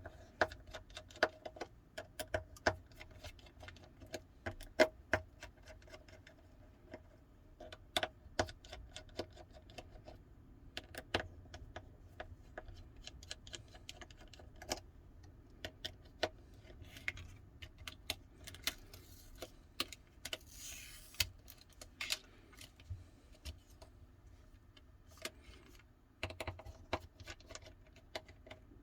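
Small metal clicks and taps of a precision screwdriver unscrewing the tiny screws of a Samsung Galaxy Note 9's inner plate, irregular and a few per second, with screws and tools set down on the bench.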